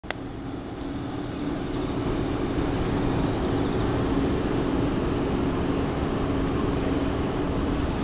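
Steady low rumble of distant city traffic, with insects singing over it: a high continuous trill and a faint regular chirp about three times a second. A sharp click at the very start.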